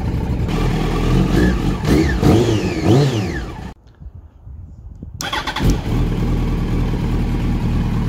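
Yamaha R1's inline-four engine running just after starting, blipped up and down in revs a few times and then settling to a steady idle. The sound cuts out for about a second and a half near the middle, then the idle carries on.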